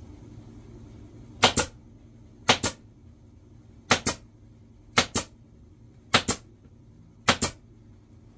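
Pneumatic upholstery staple gun firing six times, roughly once a second, each shot a sharp double crack as it drives a staple through the vinyl seat cover.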